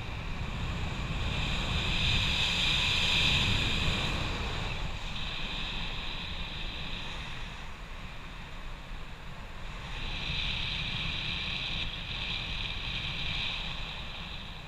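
Airflow rushing over the camera microphone during a paraglider flight: a steady wind rumble that swells louder twice, about two seconds in and again about ten seconds in.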